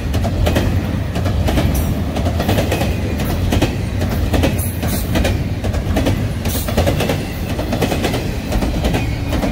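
Double-stack intermodal freight cars rolling past close by: a steady loud rumble of steel wheels on rail, with irregular clicks and clacks as the wheels cross rail joints.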